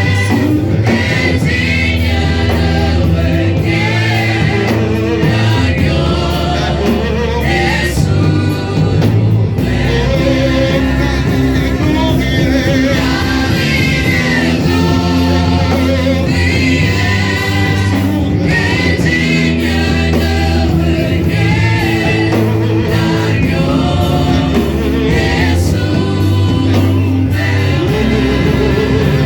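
Gospel worship music: singers over a steady band with a strong bass line.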